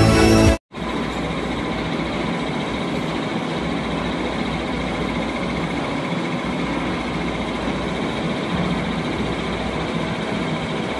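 Music cuts off about half a second in; after a brief gap, a CNC lathe runs steadily, its spindle turning a steel cylinder, giving an even machine noise with faint steady high tones.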